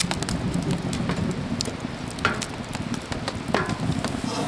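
Wood fire crackling and popping in the open firebox of a small wood-burning stove, irregular sharp snaps over a low steady rumble.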